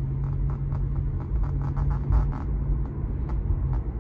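Cabin noise of a 2023 Tesla Model 3 Performance on the move: steady low road and tyre rumble with a steady low hum that stops just before the end, and scattered light ticks.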